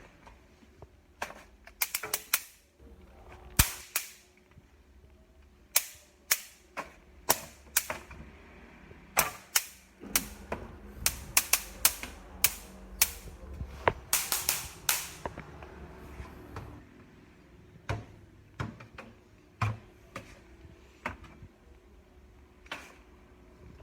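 A series of sharp, irregular clicks and knocks, coming thickest in a quick run around the middle.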